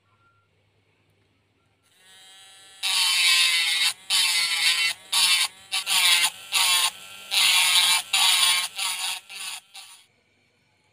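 Pen-sized mini rotary tool with an abrasive bit grinding a PVC model part. The small motor whines as it spins up about two seconds in. It then goes loud and gritty in a series of short passes on the plastic, with brief quieter gaps, and stops shortly before the end.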